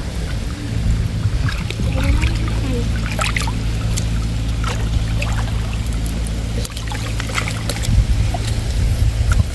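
Water sloshing and splashing as a person wades chest-deep and gropes with her hands along a muddy canal bank, with scattered short splashes. Under it a small engine hums steadily at a low pitch.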